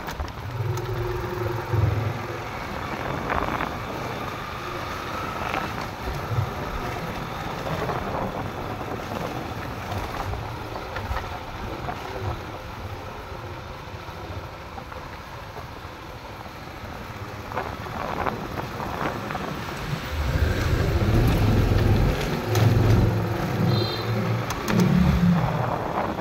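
Street traffic: motorcycle and car engines passing, loudest in the last few seconds.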